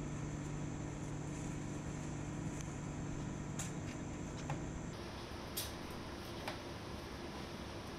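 Steady hum of lab refrigeration and ventilation machinery at an open, frosted ultra-low-temperature freezer, with a few light clicks as a frozen sample box is handled. The hum changes character about five seconds in.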